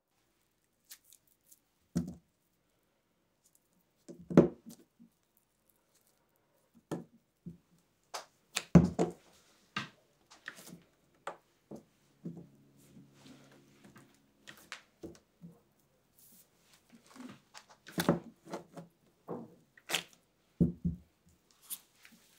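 Hands breaking firm tart dough into lumps and pressing them together on a silicone baking mat: irregular soft thuds as pieces are set down and pressed, with short tearing and crackling noises between them.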